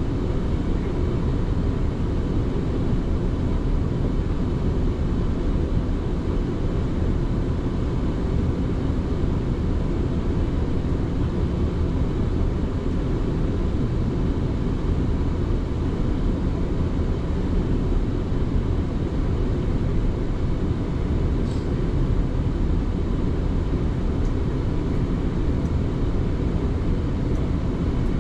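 Electric passenger train running at speed, a steady low rumble of wheels and track heard from inside the carriage.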